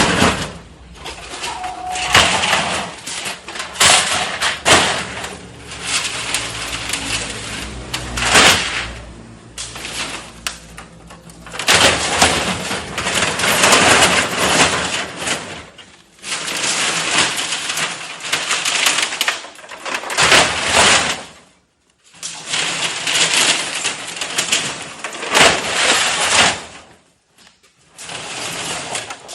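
Metal cans clattering and crunching in a can baler, a dense rattle of many small metallic knocks in long stretches broken by brief pauses.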